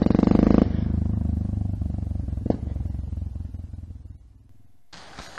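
Motorcycle engine running with a deep, pulsing exhaust note, loudest in the first half-second and fading away over about four seconds. Near the end it gives way to quiet outdoor background with a few clicks.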